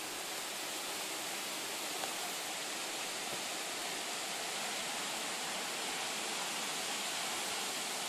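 Steady hiss of heavy storm rain falling on pavement and foliage.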